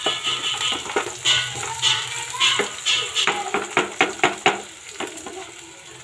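Chopped onions frying in oil in a kadai, sizzling as a spatula stirs and scrapes them around the pan. A quick run of sharp spatula scrapes and knocks comes about three to four seconds in, and it settles to quieter sizzling near the end.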